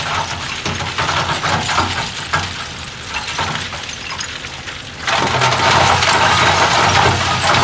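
Bulldozer diesel engine running under load while stone and soil crunch and clatter against the blade and tracks. About five seconds in, the grinding of rock gets suddenly louder and denser.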